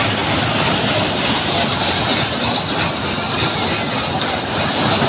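Fairground ride running at speed: a loud, steady rumble and rush of the cars moving along their track.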